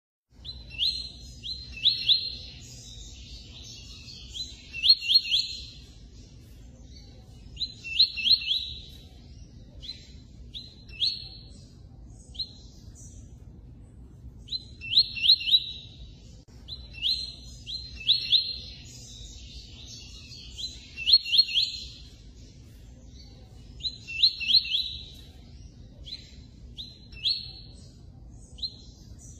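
Double-collared seedeater (coleiro) singing. Phrases of quick, high, clear notes repeat about every three seconds over a low, steady background hum.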